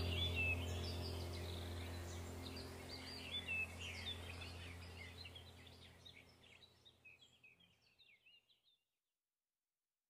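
Background track of birdsong chirps over a steady low drone, fading out to silence about six seconds in.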